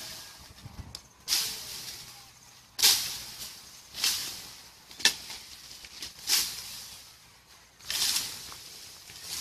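Branches and leafy bushes being hacked with a long blade, about seven strokes in a row, one every second or so. Each stroke is a sudden hit followed by a fading rustle of leaves.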